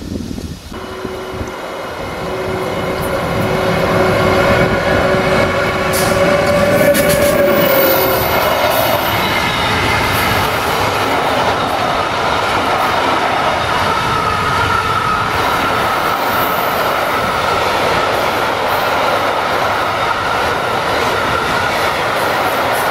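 Long freight train of covered hopper wagons rolling past: the sound builds over the first few seconds as it draws near, then holds as a steady noise of wagon wheels running on the rails with a high ringing tone over it.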